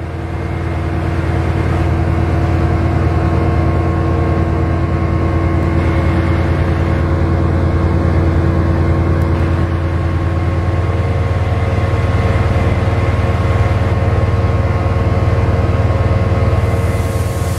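Class 68 diesel-electric locomotive's V16 diesel engine working under power as the train pulls away, a steady deep drone.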